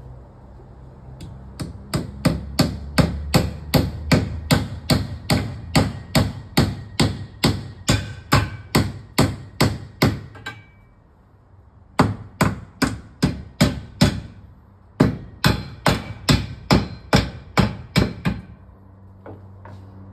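Claw hammer nailing timber formwork beams: rapid, evenly spaced blows, about two to three a second, in three runs broken by short pauses about ten and fourteen seconds in.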